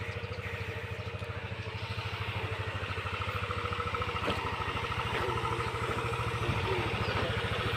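Motorcycle engine running steadily at low revs, a fast even pulse that grows slightly louder over the seconds.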